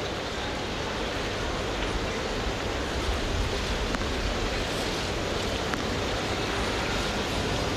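Steady crowd noise filling an indoor tennis arena, with a few faint taps.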